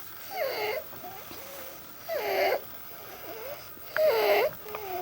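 A child with croup (acute laryngotracheitis) breathing with inspiratory stridor: three loud pitched breath sounds of about half a second each, roughly two seconds apart, with fainter ones between. The sound is a sign of a narrowed upper airway at the larynx.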